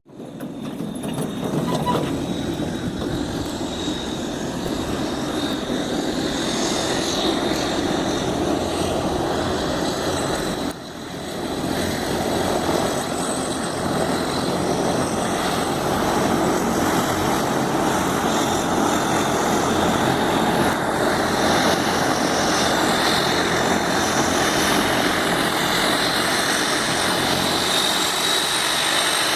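Embraer EMB-120 Brasília's twin turboprop engines running loud and steady, a dense propeller roar with a thin high whine over it. The sound drops briefly about eleven seconds in, then carries on.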